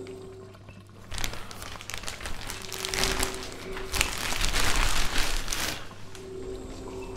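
Clear plastic sheeting crinkling and crackling as it is grabbed and pulled off, starting about a second in, getting louder, and stopping about six seconds in. A low, steady music drone plays underneath.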